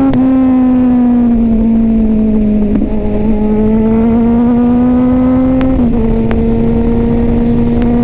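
Kawasaki Z900's inline-four engine accelerating hard through the gears, heard from on board: the pitch rises, drops sharply at an upshift right at the start and again near six seconds in, and climbs again between. Wind rumbles on the microphone underneath.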